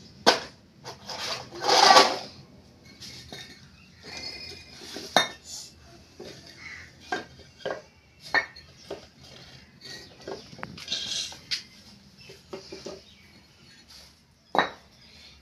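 Fired clay bricks and a wooden board being handled and stacked on brick paving: scattered sharp clinks and knocks as brick meets brick, a few louder than the rest, with a brief scrape now and then.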